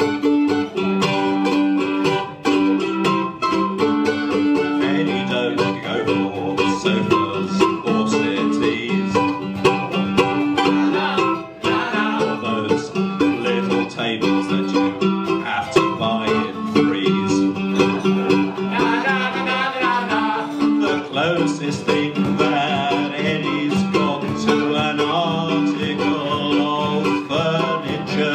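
Live acoustic folk band playing an upbeat tune, led by plucked strings (guitars, banjo or mandolin, ukulele) over a bowed cello line.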